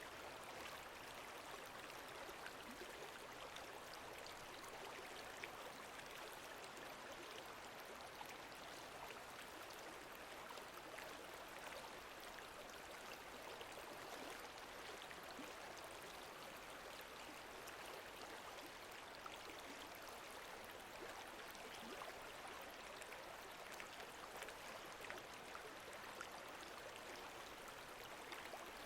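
Faint, steady wash of lake water lapping and trickling, flecked with many small drip-like ticks.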